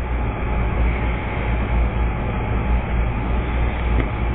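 Steady low rumbling background noise with no distinct events, and one faint click near the end.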